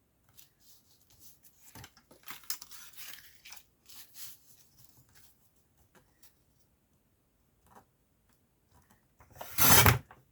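Paper and card rustling and tapping as a card is shifted and lined up on a paper trimmer, then one short, loud cut of the trimmer blade through the card near the end.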